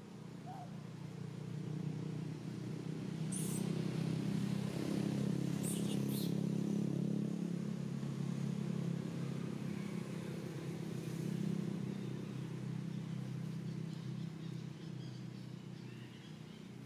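A motor vehicle's engine passing, its hum swelling over several seconds and then fading away. A few sharp clicks sound in the middle.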